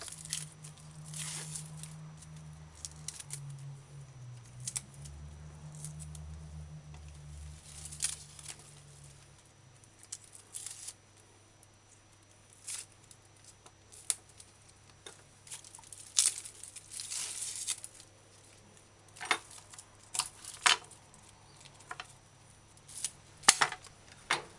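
Dry, papery outer leaves being torn and stripped off scallion stalks by hand, in short rips and rustles scattered throughout. A low hum runs under the first ten seconds or so, then stops.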